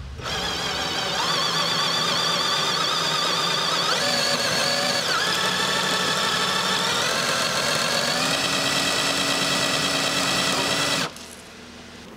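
Cordless drill-driver spinning an engine oil pump on a test rig, a steady motor whine that shifts in pitch a few times as the pump draws oil up to fill a dry oil filter. It stops abruptly near the end.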